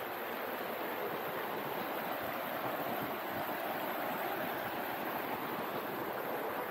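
Shallow, rocky river rushing over and around stones: a steady flowing-water noise.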